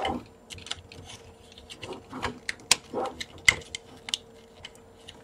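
Plastic parts of a KO MPM-13 Blackout transforming figure clicking and knocking as they are pushed and snapped into place by hand: a series of irregular sharp clicks.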